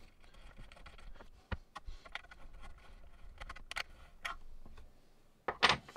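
Small clicks and taps of a metal pin and hex key being worked into the plastic bucket pivot of a 3D-printed RC excavator. Near the end there is a louder double knock.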